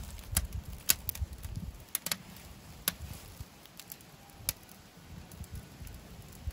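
Wood fire crackling in the open firebox of an England's Black Bear Survivor steel camp stove: a scattering of sharp pops, the loudest about a second in.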